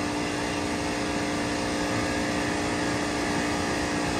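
Daikin AGZ air-cooled chiller running with one scroll compressor on circuit one: a steady machine hum holding one constant tone over an even rush of air, unchanging throughout.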